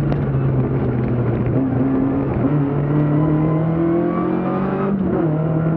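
BMW 2002 Ti rally car's four-cylinder engine pulling under acceleration, its pitch climbing steadily. About five seconds in the note breaks off briefly and comes back lower as the car shifts up a gear.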